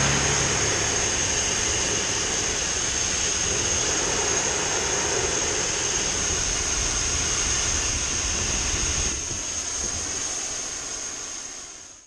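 Large cutting torch burning with a steady hissing roar and a thin high whistle over it; it drops a little about nine seconds in and fades out at the end.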